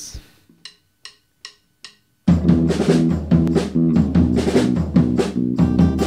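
Four faint, evenly spaced clicks, a drumstick count-in, then about two seconds in a small rock band comes in loud and steady: drum kit with bass and snare drum, strummed acoustic guitar and electric guitars playing chords.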